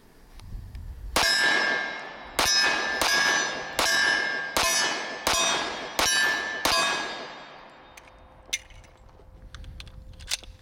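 Commander-size 1911 pistol fired eight times in quick succession over about five and a half seconds, starting about a second in. Each shot is a sharp crack followed by a ringing metallic clang.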